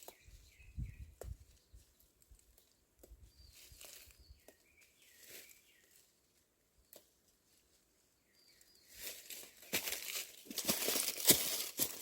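Faint bird chirps over a quiet background. From about nine seconds in come loud, close rustling and crinkling of plant leaves and stems being handled.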